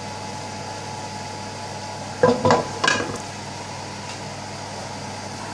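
Metal frying pan clattering against the gas hob three times in quick succession about two seconds in, over a steady hum.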